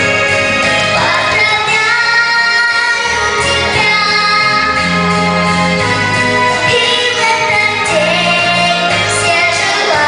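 A female vocalist singing a song with long held notes over instrumental backing accompaniment.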